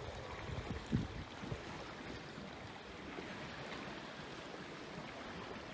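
Water lapping and splashing against the hull of a boat moving slowly across a calm bay, an even wash with a few low bumps in the first second or so.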